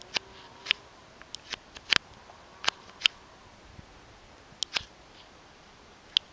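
A scattering of sharp, irregular clicks and ticks, about fifteen of them, over a faint steady hiss.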